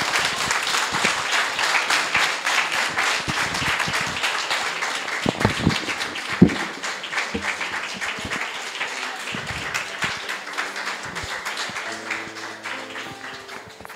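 Audience applauding, the clapping slowly dying away. A few steady low notes come in near the end.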